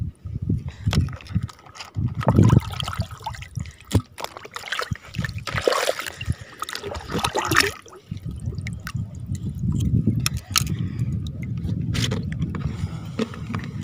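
Water sloshing and splashing around someone wading through a reservoir, irregular, with heavier splashing in the middle.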